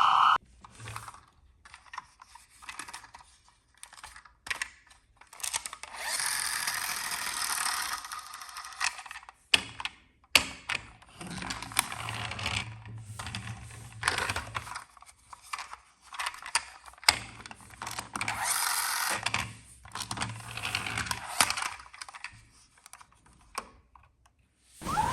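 Plastic toy cars being handled and rolled across a surface: irregular clicking and rattling, with several stretches of rolling, scraping noise lasting a second or two each.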